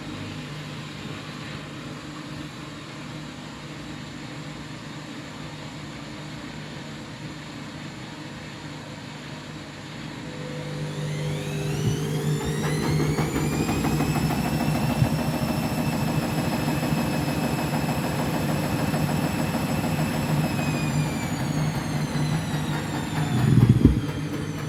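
Washing machine ramping up into its final spin: a steady low hum, then about ten seconds in the motor's whine rises in pitch and levels off into a steady high whine, easing slightly near the end. A loud low thump comes just before the end.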